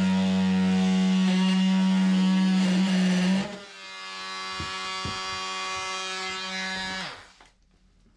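Compact 3-inch Milwaukee grinder cutting at the edge of a round hole in ceramic wall tile: a loud, steady motor whine that eases off about three and a half seconds in, runs on more quietly with a couple of knocks, then winds down and stops about seven seconds in.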